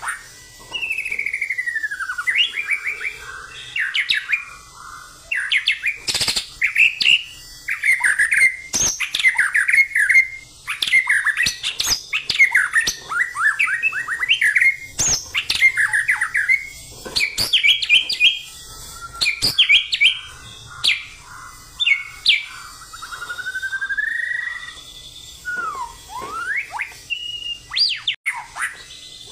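White-rumped shama (murai batu) singing a loud, fast, varied song of quick whistled notes, sweeps and sharp calls, phrase after phrase with only brief pauses, in the energetic, aggressive 'fighting' style.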